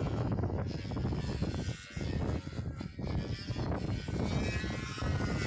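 Control-line stunt model airplane flying its aerobatic pattern, its motor droning steadily as it circles, with wind buffeting the microphone.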